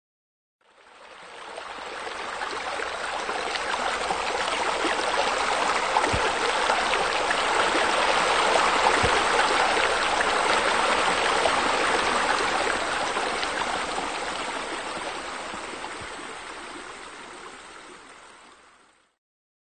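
Steady rush of running, splashing water that fades in over the first few seconds and fades out near the end.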